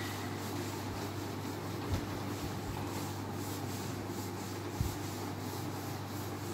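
Blackboard duster wiping chalk off a chalkboard in repeated rubbing strokes, over a steady low hum. There are two small knocks, about two seconds in and again near the five-second mark.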